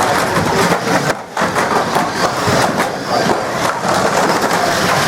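Banger racing cars running on the track: a loud, dense mix of engine noise and rattling knocks, dipping briefly about a second in.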